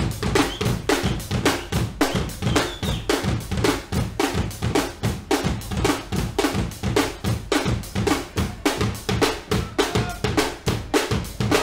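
Guggenmusik drum section, a drum kit with bass drum, snare and cymbals, playing a fast, steady groove at about four beats a second.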